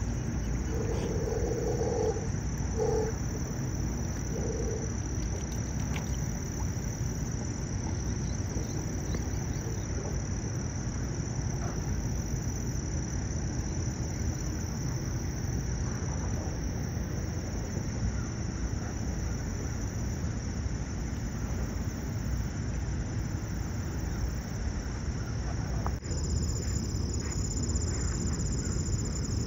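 Steady high-pitched insect chorus over a constant low outdoor rumble. Three short, low calls come near the start, and the insects' tone shifts slightly near the end.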